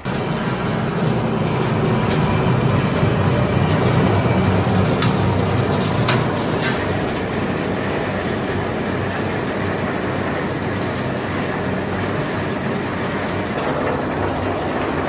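Olive-oil mill's feed line running loudly: the conveyor and leaf separator give a steady mechanical rattle, with the clatter of olives tumbling through the machine.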